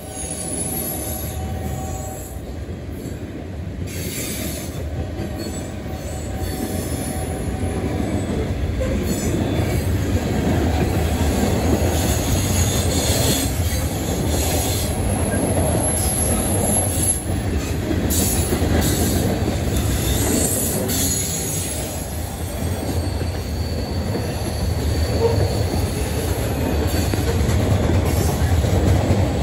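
Freight train of coal hopper cars rolling past at close range: a steady, loud rumble of wheels on rail that slowly grows louder, with faint high-pitched wheel squeal coming and going.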